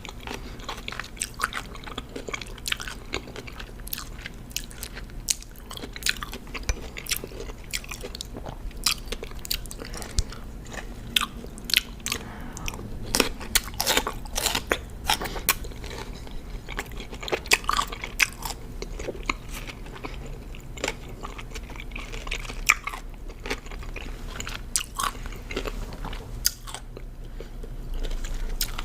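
Close-miked biting and chewing of crunchy raw cucumber: a steady run of crisp, wet crunches, thickest around the middle and thinning out near the end.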